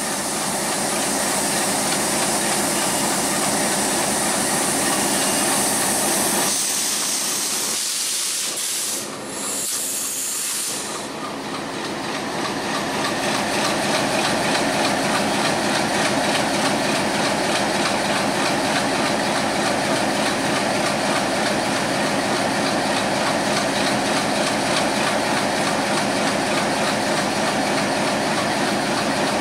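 Broad-gauge diesel locomotive running as it draws a passenger train slowly into a station, a steady engine hum under a strong hiss. The hiss eases about eleven seconds in, and the engine grows louder as the locomotive comes closer.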